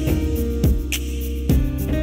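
Background music with held pitched notes and a steady low beat.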